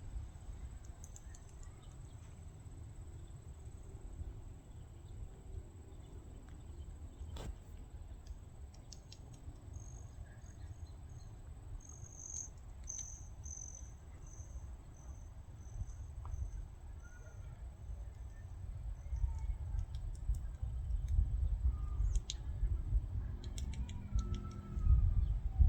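Wild bird and insect-like chirping over a low wind rumble. For several seconds in the middle, a high, evenly repeated chirp comes about twice a second, and a few sharp taps sound near the end.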